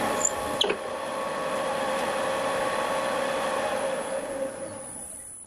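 Wood lathe running with a steady motor hum and a thin high whine, under the hiss of a skew chisel cutting the spinning wood. A brief knock comes about half a second in, and the sound dies away near the end.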